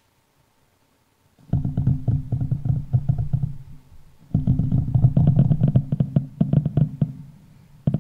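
Fireworks recorded by a microphone buried 20 cm underground: rapid volleys of muffled low thuds and crackles. They start about a second and a half in, ease off briefly around four seconds, then come back as a second dense barrage.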